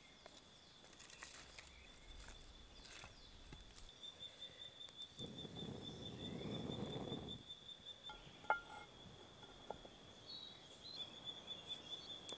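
A steady, high-pitched insect trill that turns into a fast, even pulsing about four seconds in. A soft rush of low noise lasts a couple of seconds in the middle, followed by a few faint clicks.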